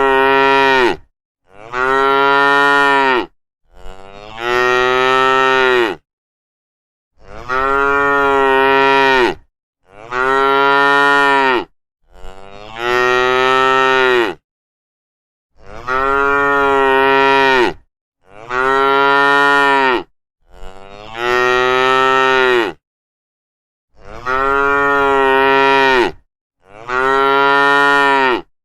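A cow mooing over and over: about eleven long moos of roughly two seconds each, nearly identical to one another and separated by dead silence.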